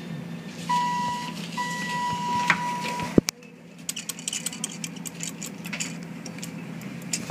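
Inside a ThyssenKrupp traction elevator car stopped at a floor, a steady electronic beep sounds twice, a short one and then a longer one of about a second and a half. A sharp clunk follows about three seconds in, then light clicking over the car's steady hum.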